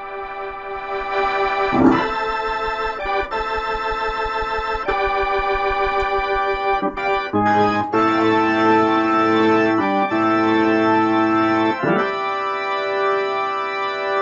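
1976 WLM Trip organ, a Finnish Hammond clone, playing held chords through an Allsound Leslie rotating speaker. The tones pulse with the rotor, and the chords change several times.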